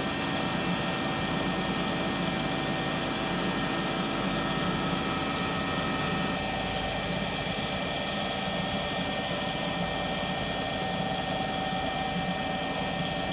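Star SR32J Swiss-type CNC lathe running through its machining program: a steady machine hum with several steady whining tones, one of which drops out about halfway through.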